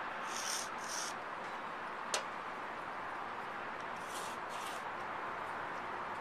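Short scratchy strokes of a pencil and a steel framing square being drawn and slid over a wooden log seat, with a single tick about two seconds in, over a steady background hiss.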